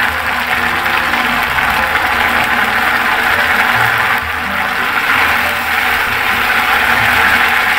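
Red chilli paste and crushed garlic frying in hot oil in a kadai: a loud, steady sizzle as the paste is cooked until its raw smell goes.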